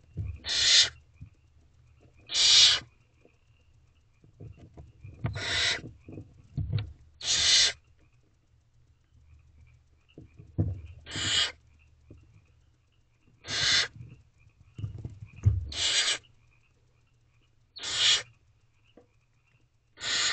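Barn owlets giving their hissing begging calls, one harsh hiss about every two seconds, nine in all. Low scuffling thumps from the birds shifting in the nest-box shavings sound between the calls.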